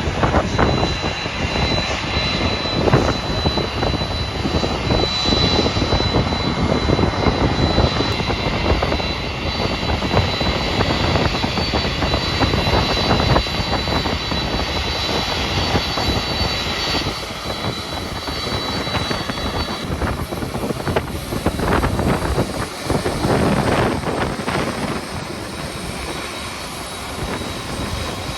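Jet airliner engines running loud, with a steady high whine that fades out about twenty seconds in, over a rough, uneven rumble of wind on the microphone.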